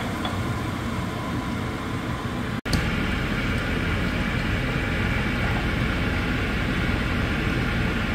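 Bolognese sauce sizzling and simmering in the pan on the cooktop: a steady, even hiss with a momentary dropout about two and a half seconds in.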